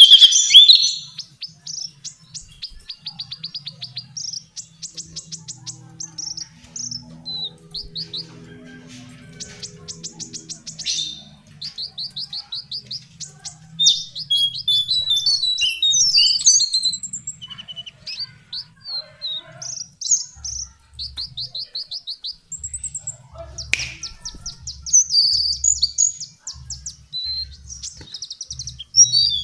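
Lesser shortwing (cingcoang coklat) singing: a string of quick, high trills and short warbled phrases with brief gaps between them, loudest right at the start.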